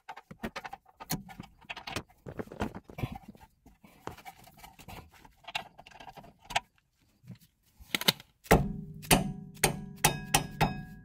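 Hand tools clinking and tapping as a socket bit is fitted to a ratchet and set on the brake caliper bracket bolt. About eight seconds in, a run of loud, sharp metallic clicks with a ringing follows as the ratchet turns the bolt.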